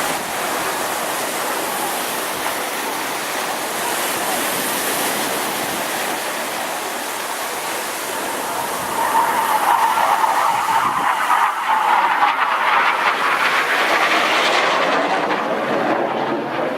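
Jet engine noise from a Panavia Tornado GR4 flying its display. It grows louder about nine seconds in, and its high hiss drops away near the end as the jet moves off.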